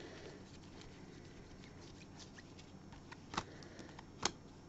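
Faint handling of a stack of trading cards in gloved hands: soft shuffling with a few sharp card clicks, the loudest about three and a half and four and a quarter seconds in.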